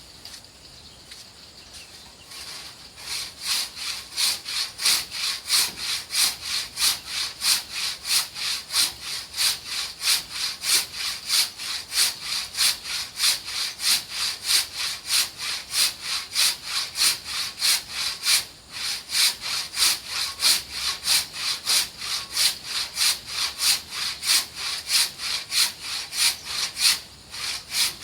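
Handsaw rip-cutting along the grain of a dense ulin (Bornean ironwood) beam, in steady back-and-forth strokes about two to three a second. The sawing starts a couple of seconds in and breaks off briefly twice.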